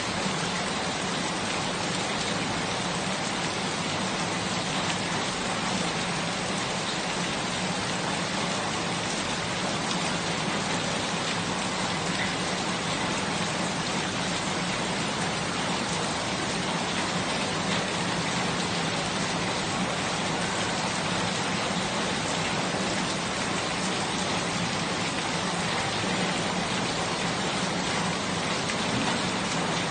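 Steady rain falling on a surface, an even hiss of drops with no change in strength.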